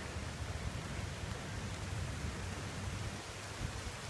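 Steady rushing of a storm-swollen creek running fast, an even hiss of water with a low, uneven rumble underneath.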